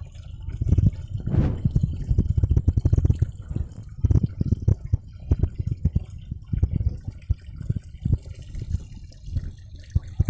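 Muffled water sloshing and irregular low thumps, heard through a camera held underwater as it moves in the pond water.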